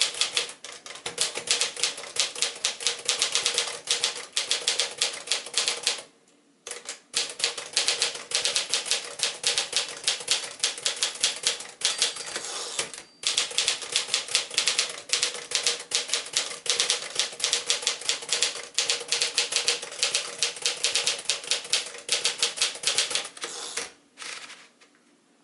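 Keys of a 1955 Smith-Corona Silent-Super manual typewriter clacking in fast, steady typing. There are brief pauses about six and thirteen seconds in, and the typing stops shortly before the end. The machine has been freshly adjusted and is working smoothly.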